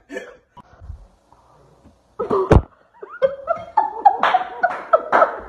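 Women laughing. About halfway through comes a single sharp thud, followed by a second stretch of bursts of laughter.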